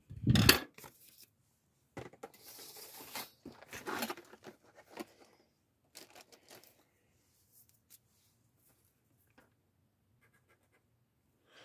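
Paper and card being handled on a desk: a thump about half a second in, then a few seconds of paper rustling and scratching, dwindling to a few faint ticks.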